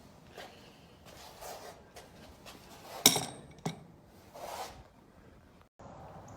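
Scattered light knocks and clinks of metal parts being handled, with one sharp clank about three seconds in and a smaller one just after.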